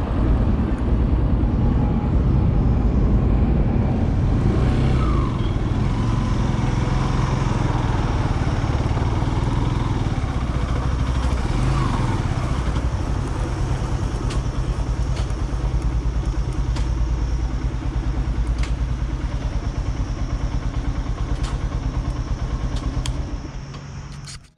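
Motorcycle engine running steadily while riding, with a continuous rush of road noise; it cuts off shortly before the end.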